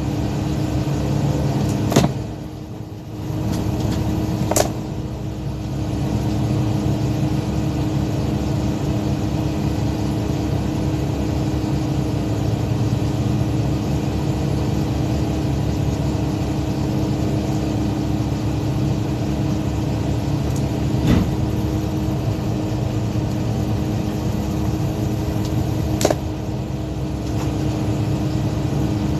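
Fishing boat's engine running steadily. Four sharp knocks break through it, about two seconds in, near five seconds, around twenty-one seconds and near the end.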